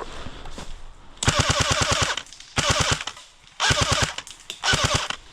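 Airsoft gun firing four rapid full-auto bursts: a longer one of about a second, then three shorter ones of about half a second each.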